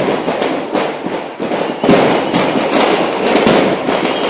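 A string of firecrackers going off: a dense, continuous run of rapid sharp pops and crackles.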